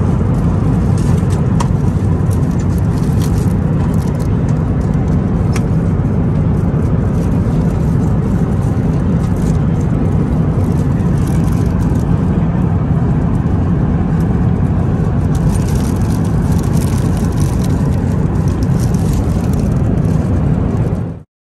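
Steady cabin drone of an Airbus A350-1000 in cruise, engine and airflow noise heard from inside the economy cabin. Faint clicks and rustles from handling the meal tray come through it, a little more in the second half, and the sound cuts off abruptly near the end.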